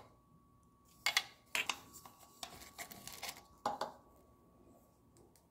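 Hard plastic toy pieces clicking and knocking against a small plastic Magic Mixies Mixlings cauldron as a figure is pulled out of it: a quick run of sharp clicks from about a second in to about four seconds in.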